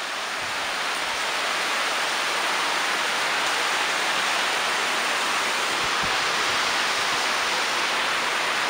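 Heavy rain falling, a steady even hiss that grows a little louder over the first couple of seconds and then holds.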